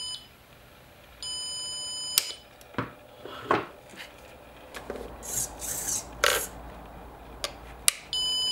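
Backup buzzer on a small RC vehicle beeping in slow on-off pulses, each beep about a second long. One beep ends right at the start and another sounds about a second later. Then the beeping stops and there are scattered clicks, knocks and rattles as the vehicle is handled and set down, before the beeping starts again near the end.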